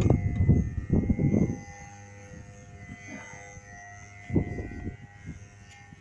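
A man working a hand wrench on the lug nuts of a skid steer's flat tire: noisy bursts of effort and handling in the first second and a half and again about four and a half seconds in, over a faint steady high whine.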